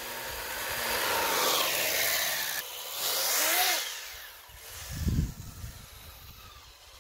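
RC snowmobile's motor whirring as its track churns through snow, the pitch rising and falling with throttle and the sound fading as it drives away. A short low thump about five seconds in.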